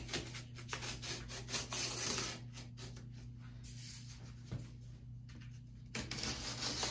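A small blade slicing through packing tape on a cardboard box, scratchy scraping in stretches, then cardboard scraping as the top flap is worked loose near the end. A steady low hum runs underneath.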